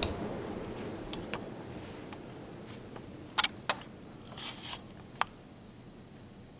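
Hunter ceiling fan winding down after being switched off: the low rush of its blades fades steadily away, with a few sharp clicks in the middle.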